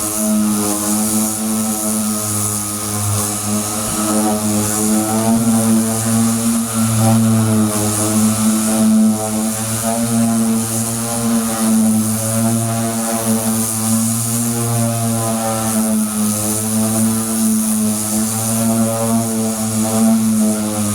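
Handheld electric sanding tool running continuously on automotive body filler, a steady motor whine whose pitch wavers slightly as it is pressed and moved over the surface.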